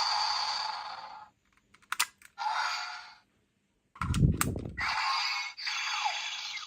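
Toy transformation device playing its electronic sound effects through a small, thin-sounding speaker. The sound comes in several bursts with silent gaps between them. There are sharp plastic clicks about two seconds in and about four seconds in, and a low thump just after four seconds.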